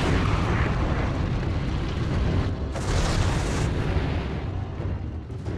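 Fire-breath and explosion sound effect: a long rush of flame over a deep, continuous rumble, with a second, brighter burst about three seconds in, tailing off near the end.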